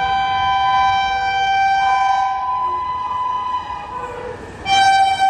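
Two-note horn of an Indian Railways electric locomotive approaching at speed. One long blast fades after about two and a half seconds, and a second short blast comes near the end, over the low rumble of the train.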